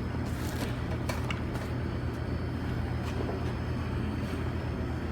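Steady low hum of kitchen equipment, with a few faint clicks from food being handled.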